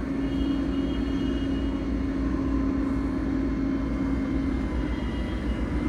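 Steady engine hum: one constant droning tone over a low rumble, unchanged throughout.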